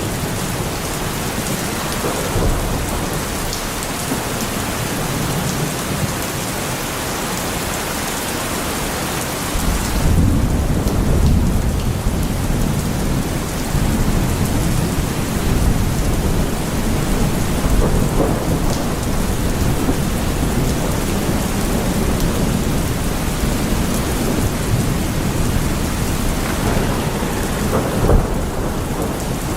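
Heavy rain falling steadily with thunder. A low rolling rumble of thunder sets in about a third of the way through and keeps going, with a short louder clap near the end.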